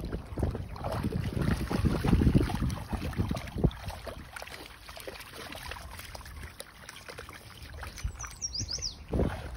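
Pocket bully dogs wading and splashing in a shallow creek, with wind buffeting the microphone, heaviest in the first few seconds. A bird chirps a few quick falling notes near the end.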